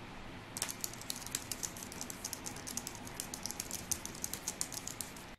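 Typing on a Logitech MX Keys wireless keyboard, with its low-profile scissor-switch keys: a fast run of quiet key clicks starting about half a second in, over a low steady hiss.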